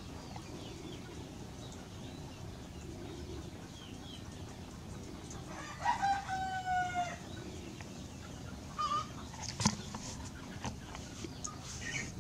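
A rooster crowing once, about six seconds in: a short rising start, then a held note of about a second. A couple of short calls follow, and a sharp click a little later is the loudest moment.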